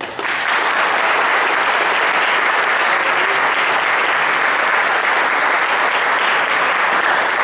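Audience applauding steadily: many people clapping at once, starting suddenly and holding at a loud level.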